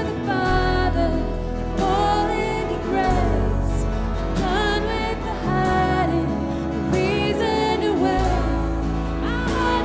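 Live worship band playing a slow song, with a lead singer's melody over sustained bass notes that change every couple of seconds.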